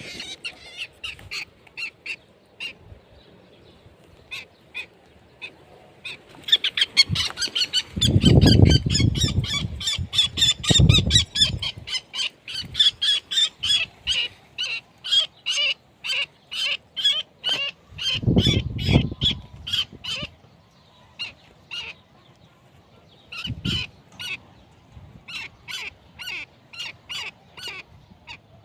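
Birds calling in short, repeated notes, many in quick succession and densest through the middle, with a few sparser calls toward the end. Loud low rumbles cut in twice, a few seconds in and again past the middle.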